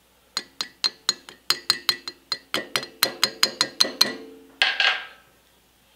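Small hammer tapping about twenty times on the cylinder of a Swan air-compressor pump, quick light blows with a short metallic ring, coming faster as they go, followed by a brief scrape about four and a half seconds in. The tapping is meant to break the cylinder loose from its base gasket.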